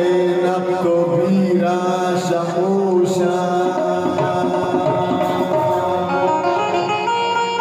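Live Balochi folk music: a male singer at the microphone with plucked-string and percussion accompaniment, playing on without a break.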